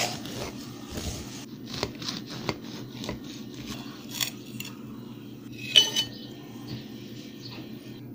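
A knife and a metal cake server tapping and scraping against a plate and the cake as a slice is cut and lifted out, with scattered light clinks and one sharp, ringing clink about six seconds in, over a low steady hum.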